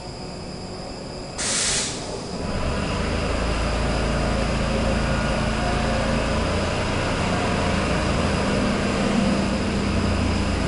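Stockholm Metro C6 subway train: a short hiss of compressed air about a second and a half in, then a low rumble of motors and wheels that builds over the next couple of seconds and runs on steadily as the train gets under way.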